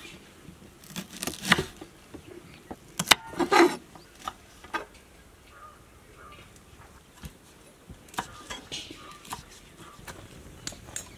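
Knife cutting green chilies on a wooden chopping board: irregular sharp taps and slices, bunched about a second in, around three seconds, and again near eight seconds.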